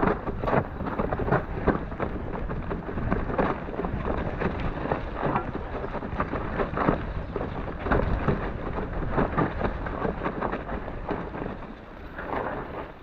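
Mountain bike clattering down a rough, rocky trail: frequent knocks and rattles as the tyres and frame hit rocks and roots, over a steady low rumble of wind buffeting the camera microphone.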